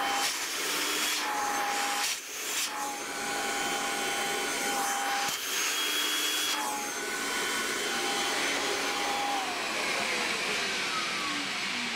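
Kirby Legend vacuum cleaner running with its hose nozzle pressed against a speaker's pushed-in centre dome, sucking the dome back out into shape. The steady whine drops out briefly a few times as the nozzle moves on the dome. Near the end the motor winds down with a falling whine.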